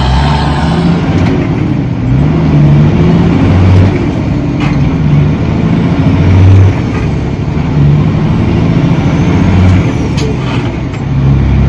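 Peterbilt 379 dump truck's diesel engine heard from inside the cab, its pitch rising and dropping several times as the truck pulls through the gears of its Eaton 18-speed transmission.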